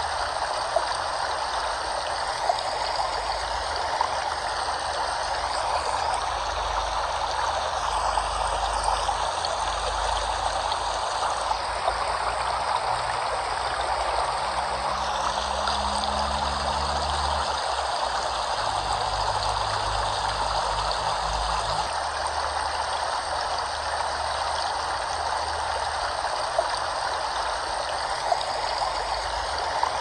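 Steady rushing of flowing water, as from a stream or small waterfall.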